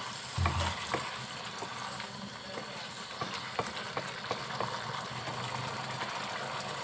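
Chicken curry with tomatoes and yogurt sizzling as it fries in a pan, while a wooden spatula stirs and scrapes through it. Irregular clicks of the spatula against the pan, with a heavier thump about half a second in.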